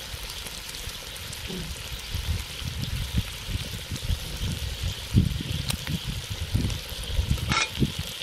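Bacon sizzling steadily in a 10½-inch Lodge cast iron skillet over a wood-fired rocket stove. Irregular low rumbling comes in from about two seconds in, and there is one short sharp noise near the end.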